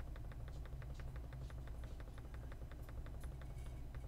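A stylus scrubbed rapidly back and forth on a drawing tablet to erase on-screen handwriting, making a fast, even clicking of about seven ticks a second over a low hum.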